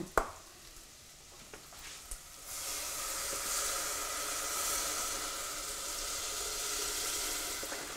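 Chicken stock poured from a carton into a hot pot of sautéed bacon, onions, carrots and celery, hissing and sizzling as it hits the pan; the steady sizzle starts about two and a half seconds in, after a couple of light clicks.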